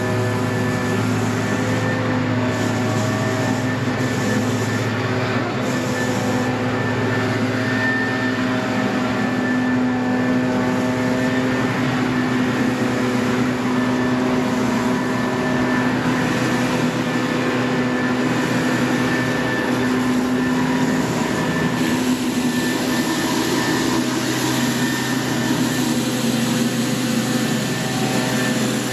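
Gas-engine pressure washer, a Stihl RB 400, running steadily under load, with the hiss of the high-pressure water spray on concrete.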